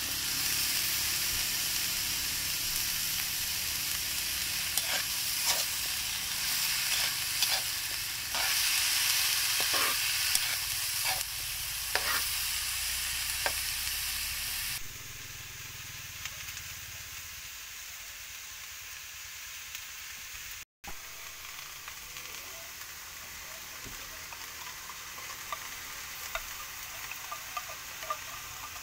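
Cut green beans sizzling in hot oil in a metal frying pan, stirred with a metal ladle that scrapes against the pan in short, regular strokes. About halfway through, the sizzle suddenly drops to a much quieter level.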